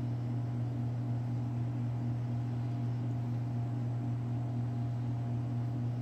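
Steady low hum of commercial kitchen machinery running.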